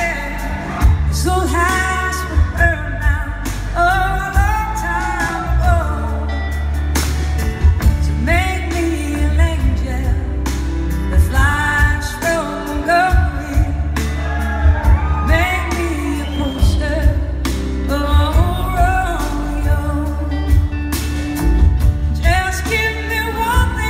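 Live band playing a slow song on electric guitars, bass and drums, with a gliding lead melody line over the top.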